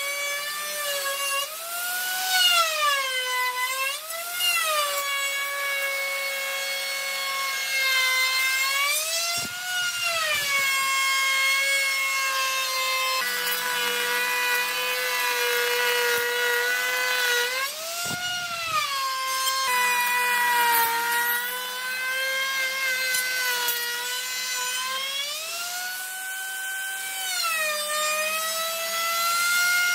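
Handheld electric router cutting an edge profile into a hardwood tabletop: a steady high motor whine whose pitch dips and rises again and again as the bit takes and eases off the cut.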